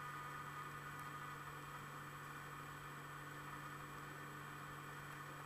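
Steady low electrical hum and hiss of room tone, with one faint, short tick about a second in.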